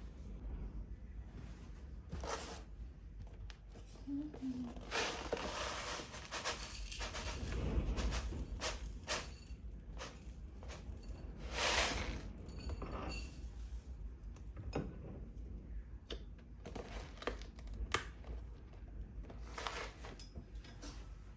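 Kitchen handling sounds: a run of irregular clicks, knocks and clinks with bursts of rustling, as of a bowl, spoon and packet being handled, over a steady low hum.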